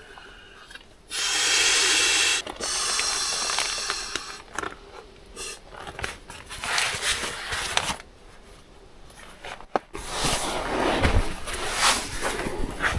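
A person inflating a sleeping air mattress by mouth: a series of long, forceful breaths blown into the valve, the first about a second in and the loudest.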